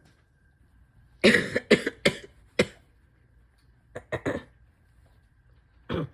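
A person coughing while ill with a chest cold: a run of about four coughs a second in, a quick cluster of three around four seconds, and one more cough at the end.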